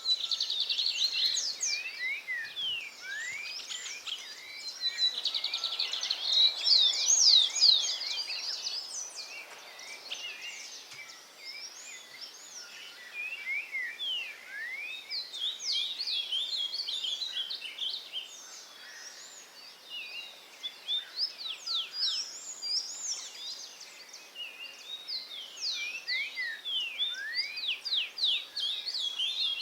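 Several wild songbirds singing and calling at once: a dense chorus of quick chirps and rapidly sliding whistled notes, busiest in the first third and again near the end, thinning out for a few seconds past the middle.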